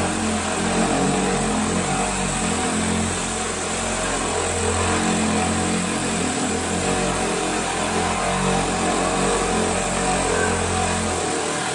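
Angle grinder fitted with a diamond core bit boring a hole through a granite countertop under a stream of cooling water: a steady motor drone with the grinding of the stone.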